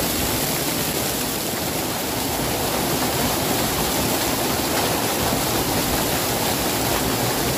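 Waterfall pouring over rock and splashing around a person standing under it: a steady, unbroken rush of falling water.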